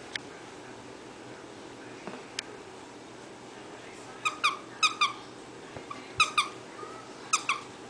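Squeaky plush dog toy being squeezed by hand: about four pairs of short, high squeaks, squeeze and release, starting about four seconds in.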